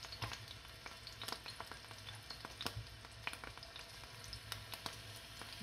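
Marinated lamb chops frying in hot oil on an iron tawa: a quiet, steady sizzle with scattered sharp crackles and pops.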